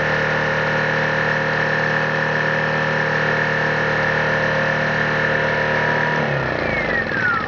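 Honeywell 1000-watt inverter generator's small engine running steadily and smoothly, then switched off about six seconds in, its pitch falling in a descending whine as it spins down.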